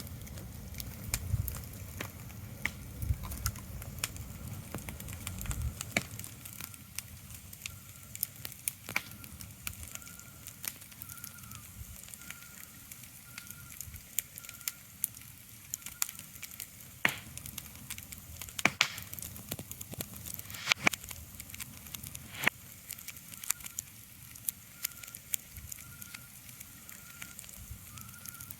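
Irregular crackling: many sharp clicks and pops at uneven intervals over a soft hiss, with a faint high chirp repeating about twice a second. A low rumble sits under it for the first few seconds.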